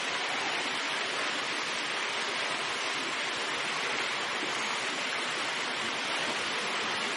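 Steady rushing, splashing water in a fur seal pool, an even wash of noise with no calls standing out.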